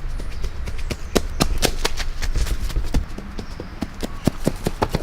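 A quick, irregular series of sharp taps over a low rumble.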